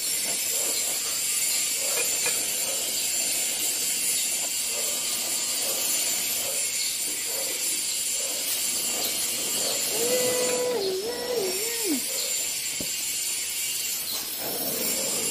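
Oxy-fuel gas torch flame hissing steadily as it heats a cast aluminium part while an aluminium alloy rod is melted onto it. A short wavering tone sounds about ten seconds in.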